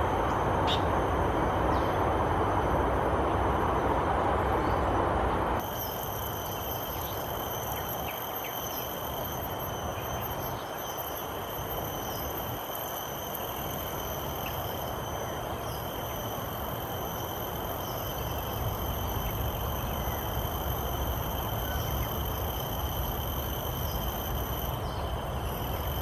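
Steady rushing background noise that cuts off about five and a half seconds in. It gives way to a constant high-pitched insect drone over quieter outdoor ambience, with no clear bird call standing out.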